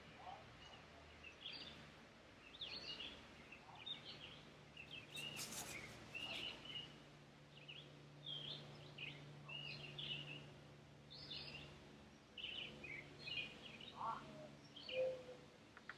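Quiet background of songbirds chirping and singing, short calls coming again and again, over a low steady hum, with a brief crackle about five seconds in.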